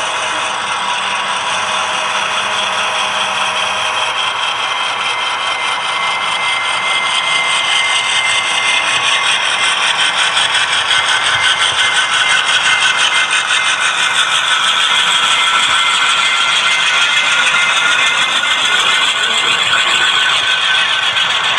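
HO scale model double-stack train running past, its wheels rattling and clicking rapidly over the track, growing louder about a third of the way in as the locomotives and cars draw near. A steady high whine runs under it in the first half.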